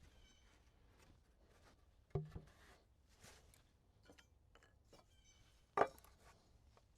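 Two sharp knocks about three and a half seconds apart, the first with a short low ring, over faint scattered clicks and handling noise.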